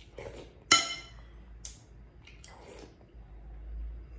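A spoon strikes a soup bowl once with a sharp clink that rings briefly, among softer eating sounds.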